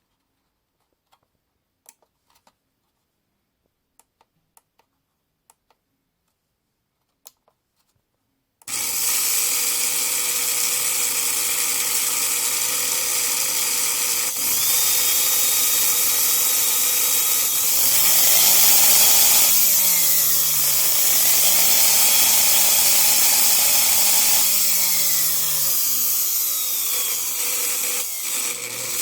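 A few faint clicks, then an electric blender motor starts abruptly and runs loudly. Partway through its pitch dips and climbs back as the speed changes, and it falls again near the end.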